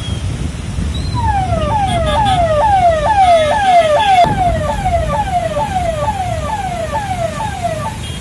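Electronic emergency-vehicle siren sounding a rapid yelp: a falling tone repeated about twice a second. It grows louder toward the middle and then fades, as the vehicle passes and moves off.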